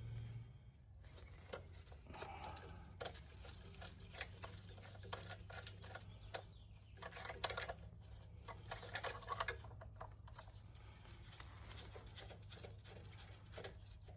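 Hand tools clicking and tapping against engine parts, scattered small metal clicks that come in quick clusters a little past halfway, over a steady low hum.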